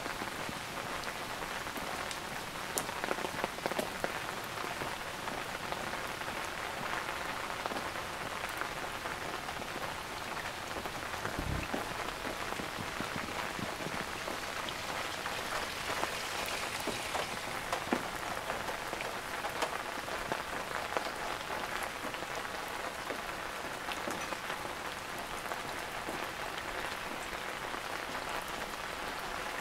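Steady rain falling, with many individual drops striking surfaces close by.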